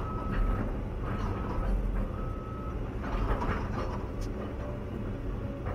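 Caterpillar 316 EL excavator's diesel engine and hydraulics running, heard from inside the cab, with a steady low rumble. A warning beeper sounds about once a second, half-second beeps at one pitch, and stops about three seconds in.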